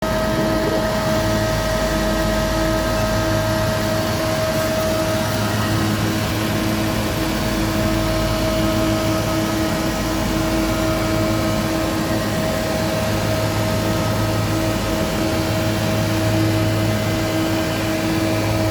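VH-M416 four-sided woodworking moulder running steadily with its motors and cutter spindles spinning, a constant hum with several held tones and no change in load.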